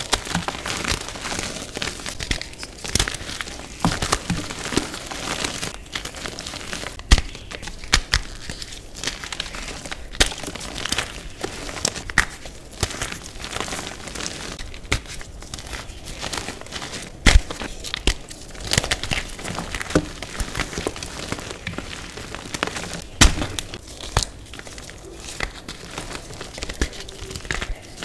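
Chunks of reformed gym chalk crunching and crumbling as bare hands squeeze and rub them, a dense dry crackle with frequent sharp snaps as pieces break apart.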